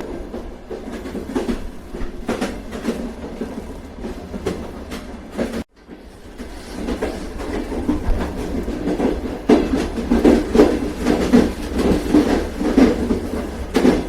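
Train wheels running over rail joints: a steady low rumble with repeated clickety-clack. The sound cuts out for a moment just before the middle, then comes back louder with a denser clatter.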